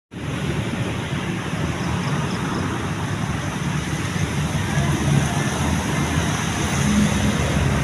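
Heavy rain falling, a steady noise, with a vehicle engine running underneath as a low hum.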